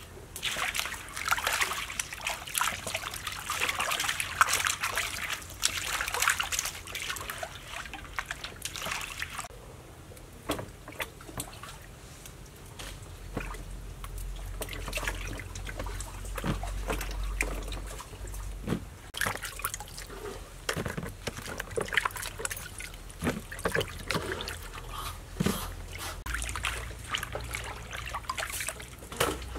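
Water sloshing and splashing in a metal basin as whole snakehead fish are washed by hand. In the middle the splashing gives way to scattered light clicks and taps, and it returns near the end.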